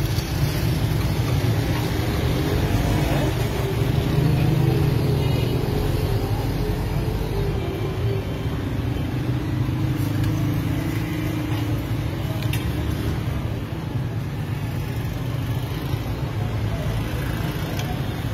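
Steady low mechanical rumble in the background.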